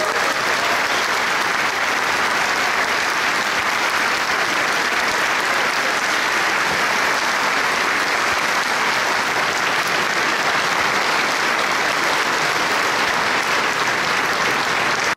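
Large audience applauding, a steady, even clapping that cuts off suddenly at the end.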